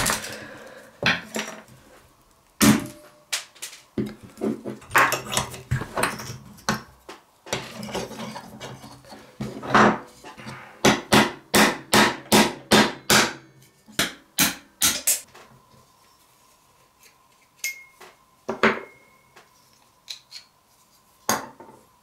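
Sharp metallic clicks and clacks of hand tools working on an old pocket knife's steel blade, bolsters and liners as it is taken apart, with the loudest clack right at the start. Through the middle comes a quick run of taps, about three a second, which thins to a few single clicks near the end.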